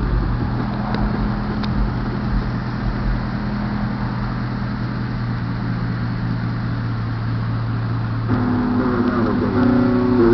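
Chevrolet Avalanche's V8 idling steadily, a low even exhaust rumble. About eight seconds in, music with a singing voice starts up over it.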